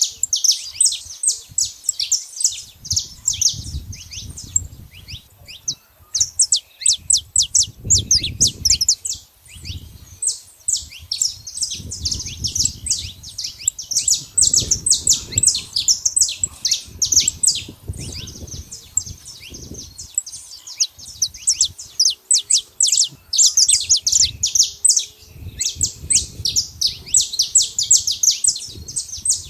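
Saffron finches singing: long runs of fast, high chirps, broken by short pauses, with an intermittent low rumble underneath.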